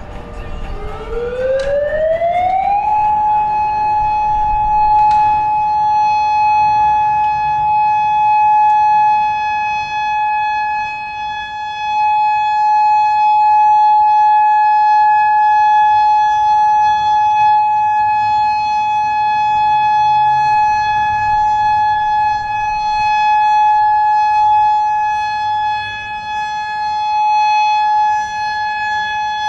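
Federal Signal DSA outdoor warning siren sounding a steady Alert tone. Early on the pitch dips, then rises over about two seconds and settles on one held tone that runs on unchanged.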